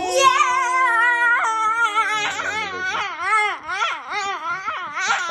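Children shouting in excitement. First a long held cry slides slowly down in pitch, then a warbling cry wavers quickly up and down.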